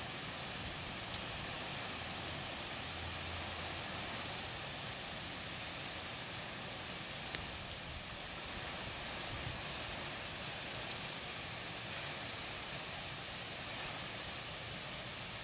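Steady hiss of wind and rain, even throughout, with a couple of faint ticks.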